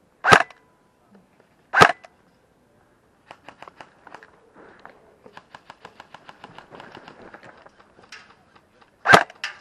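Airsoft gun firing single shots: three sharp cracks, two in quick succession near the start and one near the end. In between comes a long run of faint rapid clicking.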